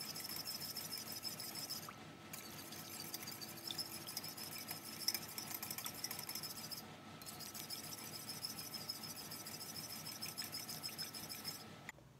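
Wire whisk beating eggs into a liquid mixture in a glass bowl: rapid, high-pitched clicking and swishing of the wires against the glass, with two short pauses.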